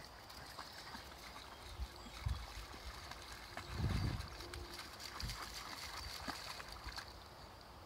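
Faint splashing and sloshing of two dogs wading through shallow river water at the bank, with a few low dull thumps, the loudest about four seconds in.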